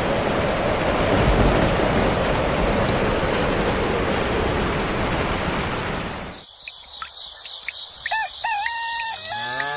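Steady heavy rain that cuts off abruptly about six seconds in. A rooster crows near the end, rising, holding and falling away, over a steady high insect chirr.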